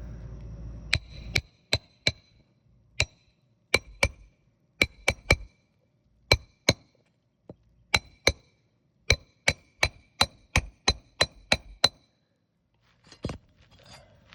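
Hammer striking metal roofing nails during a shingle repair: about two dozen sharp, irregular blows, some in quick pairs, each with a short metallic ring.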